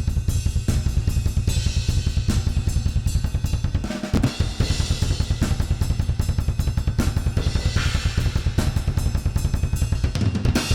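Metal drum track playing back through a Pultec-style EQ plugin: rapid double bass drum kicks under snare, hi-hat and cymbals, with a short break about four seconds in.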